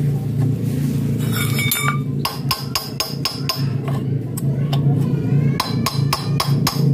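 Hammer blows on a steel punch set against the impeller hub of an irrigation water pump, at about two to three a second from about two seconds in, each knock with a short metallic ring. The impeller is being knocked loose from its rusted shaft seat. A steady low drone runs underneath.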